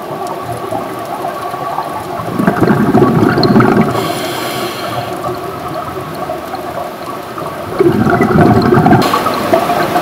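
Underwater recording of scuba divers' exhaled bubbles. Two louder surges of bubbling, about two seconds in and again near the end, sit over a steady watery wash, with a short hiss between them.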